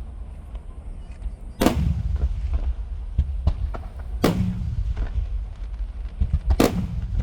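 Aerial fireworks shells bursting overhead: three loud booms a little over two seconds apart, each with a long low rumbling tail, among many smaller pops and crackles.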